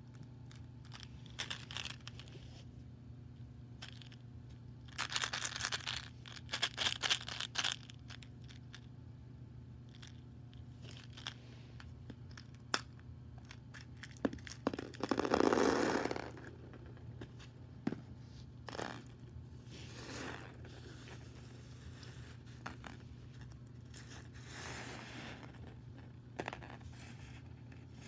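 A wrapper being torn open and crinkled by hand in several bursts, the loudest about halfway through, over a faint steady low hum.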